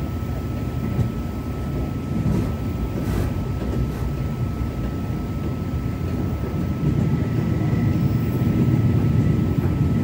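Running noise inside a moving TRA Tze-Chiang push-pull express coach: a steady low rumble from the wheels on the track, with a faint steady high tone over it. The rumble grows louder from about seven seconds in.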